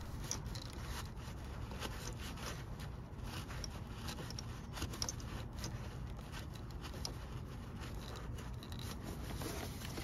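Faint scattered clicks and rubbing of gloved hands fitting a new idle air control valve and its gasket under the throttle body, over a steady low background rumble.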